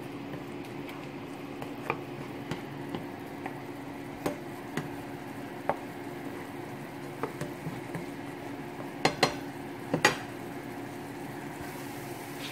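Black plastic spoon stirring a sauce in a ceramic-coated frying pan, with irregular soft scrapes and clicks against the pan and a quick run of sharper knocks about nine to ten seconds in. A steady low hum runs underneath.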